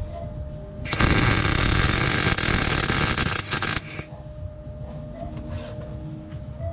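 A metalworking tool runs in one loud, harsh noisy burst of about three seconds, starting about a second in and cutting off sharply. Quieter workshop background comes before and after it.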